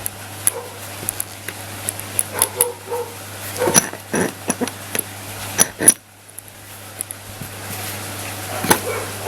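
Sharp clicks and knocks of metal BMX hub parts being handled and fitted back together, the loudest about six seconds in. A dog barks a few times.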